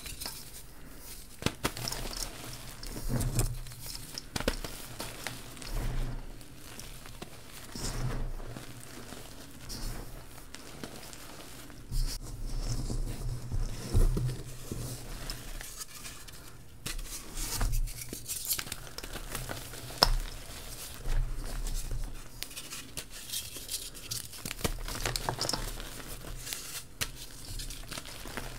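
Hands squeezing, crumbling and sifting powdery reformed gym chalk in a metal bowl: soft crunching and gritty crackling in uneven bursts, with a few sharper cracks as clumps break.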